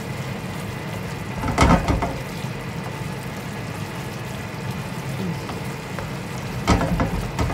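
Steady sizzling and bubbling of food cooking in pans on the hob, with two brief knocks of a pan being handled, about a second and a half in and near the end.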